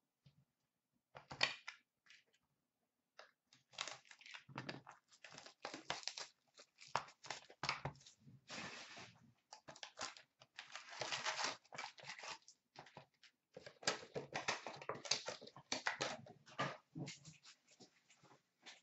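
Packs of Upper Deck Artifacts hockey cards being torn open and their wrappers crinkled as the cards are pulled out and handled, in irregular bursts of rustling that come thick after the first few seconds.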